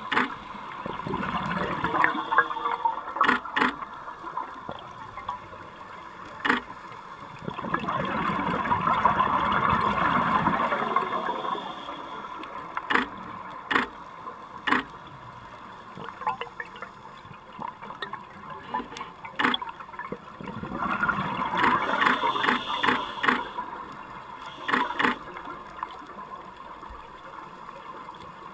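Underwater sound heard through a camera housing: a scuba diver's regulator exhaust, bubbles rushing out in long bursts about twelve seconds apart, with sharp clicks scattered throughout from the still camera and its strobes firing.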